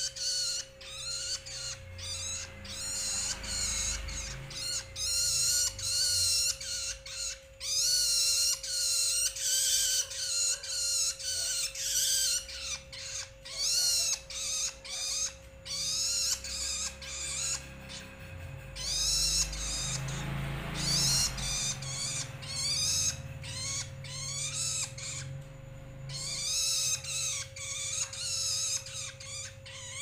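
Juvenile long-tailed shrike (Lanius schach) calling: quick wavering notes repeated in rapid runs with short breaks between them. A faint steady tone runs underneath.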